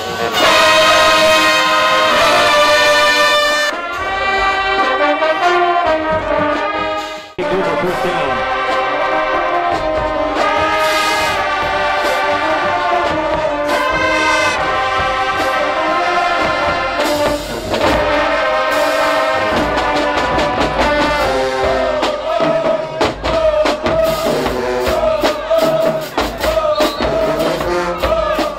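Brass-led music, horns such as trumpets and trombones playing held chords, with a brief break about seven seconds in.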